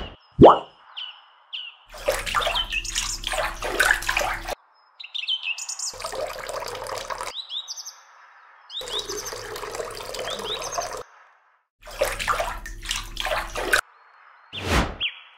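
Water poured from a small steel pot splashing into shallow water, in four separate pours of one to two seconds each. Birds chirp between and over the pours.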